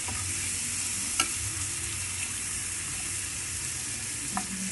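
Sliced white onion rings sizzling in a frying pan as a metal spatula stirs and turns them, a steady hiss with one sharp click about a second in.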